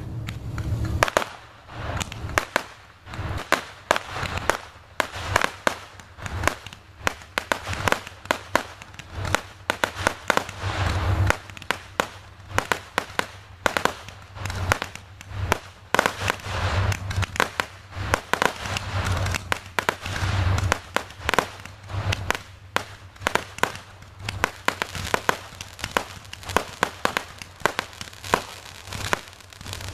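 Fireworks and firecrackers going off in rapid succession: many sharp bangs and pops overlapping, mixed with crackling and some deeper booms.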